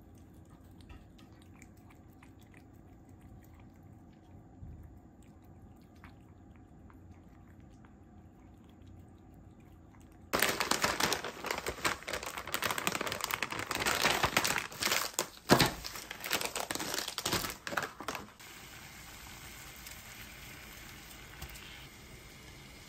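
Quiet at first. About ten seconds in, a plastic noodle packet is crinkled and rustled loudly for about eight seconds. It then gives way to a steady hiss of water at a rolling boil in a pot.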